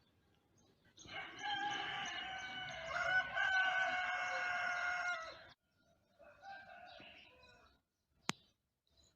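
A rooster crowing: one long, loud crow of several seconds, then a fainter second crow, with a sharp click near the end.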